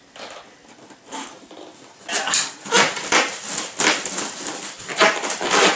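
Box packaging being handled and pulled open: a run of rustling and scraping that starts about two seconds in, after a quieter opening.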